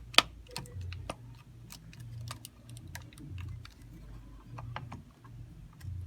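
Handling clicks and knocks of the plastic battery-pack casing being fitted back together, with one sharp click just after the start, over a low hum.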